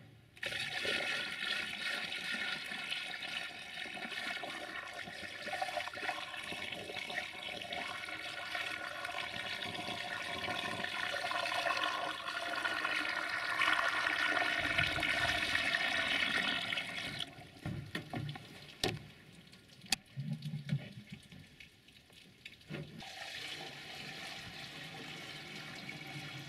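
Water poured from a bucket into a plastic funnel in a tractor's radiator filler, a steady gushing that runs for about seventeen seconds and then trails off: the cooling system being filled before a cold start. Two sharp knocks follow near the end.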